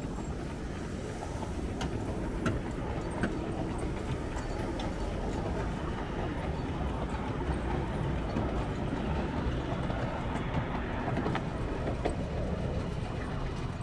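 Miniature railway train running along its track: a steady rumble of wheels on rail with occasional sharp clicks.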